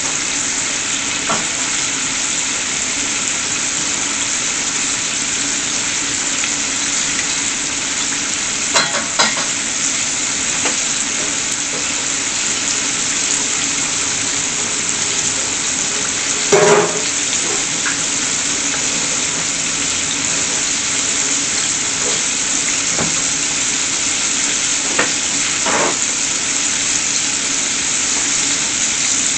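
Chicken pieces deep-frying in a saucepan of hot oil, a steady sizzle. A few short louder sounds cut through, the loudest a little past halfway.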